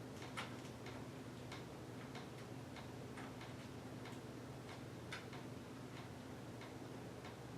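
Faint, regular ticking about twice a second over a steady low hum. Two louder clicks stand out, about half a second in and again about five seconds in, from handling the door's bolts and hardware.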